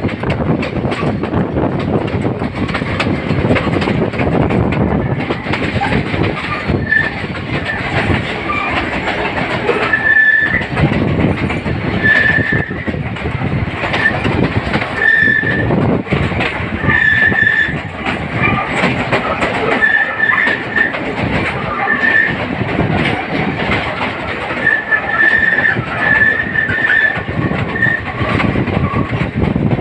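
Passenger train carriages running along the track, heard from an open carriage doorway: a continuous rumble and clatter of wheels on rails. Short high wheel squeals break in again and again every couple of seconds, typical of the train running through curves.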